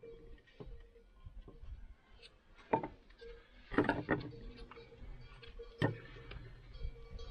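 Sticks of firewood knocking and clattering against each other and the oven floor as they are laid into a wood-fired village oven: a handful of sharp wooden knocks, the loudest near the end.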